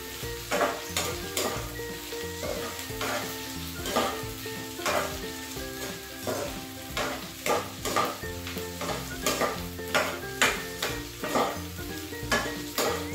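Kikiam and fishballs sizzling in oil in a granite-coated nonstick frying pan, stirred with a metal spoon that scrapes and knocks against the pan about twice a second.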